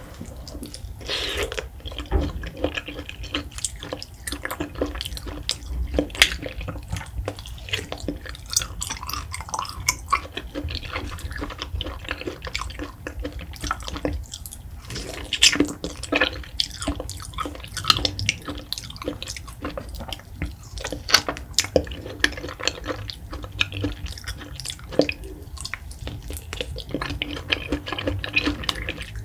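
Close-miked eating sounds: a person bites cubes of mango off the skin, then chews and sucks the flesh, with many sharp mouth clicks throughout.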